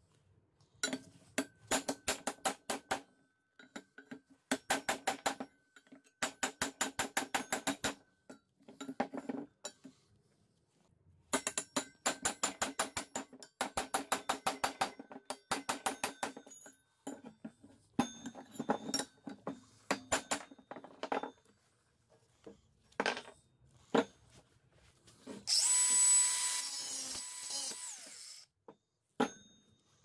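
Hammer driving a steel cold chisel into metal: rapid ringing strikes, about five or six a second, in runs of one to two seconds with pauses between. Near the end a loud harsh noise lasts about three seconds.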